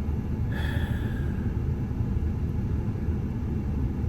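Steady low rumble of a car's road and engine noise heard from inside the cabin while driving, with a brief high squeak about half a second in.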